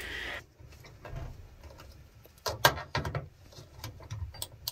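A few sharp clicks and knocks from a socket wrench working on the back panel of a washer/dryer combo, loosening its shipping fittings, with a low background hum.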